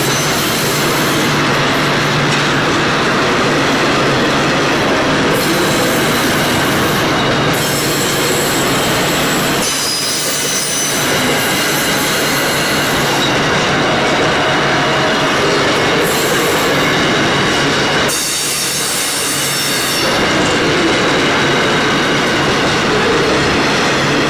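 Freight train wagons rolling past, a continuous loud rumble and rattle of boxcars on the rails. High, steady wheel-squeal tones run through it. The noise dips briefly twice as gaps in the train go by.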